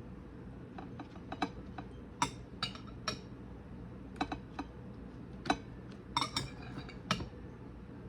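Irregular light clinks and taps of kitchen utensils against dishes, a few at a time with short pauses between.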